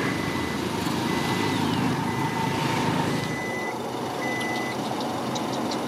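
Low rumble of a vehicle engine with a high beeping tone that sounds on and off at uneven lengths, of the kind a truck's reversing alarm makes. A few sharp clicks come near the end.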